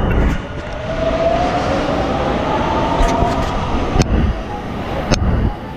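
Electric rail train pulling out of the station. Its motor whine rises in pitch over a couple of seconds above a steady low rumble, and two sharp clicks come near the end.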